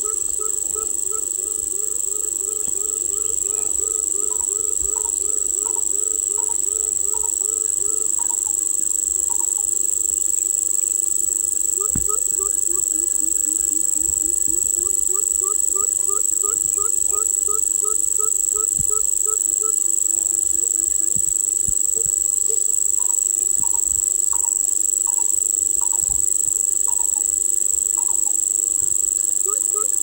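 Coucal (bubut) calling: long runs of low hooting notes, two to three a second, over a steady high-pitched insect drone that is the loudest sound. A series of higher, thinner notes runs alongside at times.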